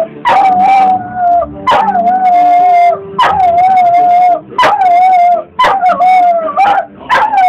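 Old cocker spaniel howling along to a television commercial. It is a string of about seven howls, each roughly a second long, that start with a high yelp and then settle onto one held note.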